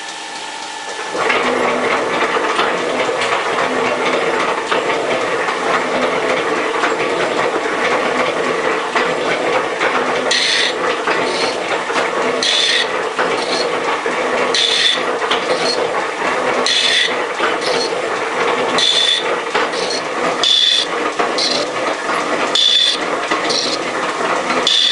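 Metal shaper running, its ram stroking back and forth as the cutting tool planes a cast-iron part. The noise jumps up about a second in. From about ten seconds in a sharper, higher scrape comes roughly every two seconds, once per stroke.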